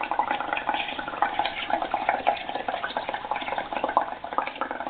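Air blown through a drinking straw into a cup of soapy bubble paint, bubbling steadily as the foam builds up, with a fast continuous crackle of small popping bubbles.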